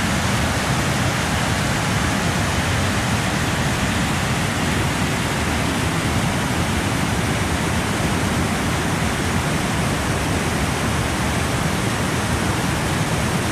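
Waterfall and rushing creek water making a steady, loud rush of white water.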